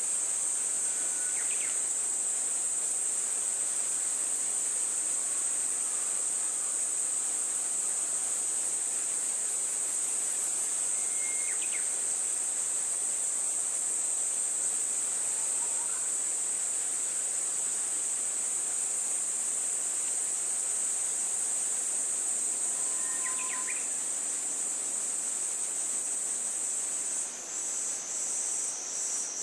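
Insects trilling: a steady, high-pitched continuous buzz that changes near the end to a pulsing, slightly lower trill. A few faint short chirps sound now and then behind it.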